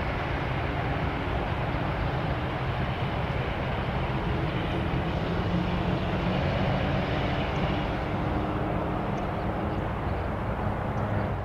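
Boeing 787 airliner's jet engines as it rolls along the runway: a steady jet roar with a faint whine over it, swelling slightly about halfway through.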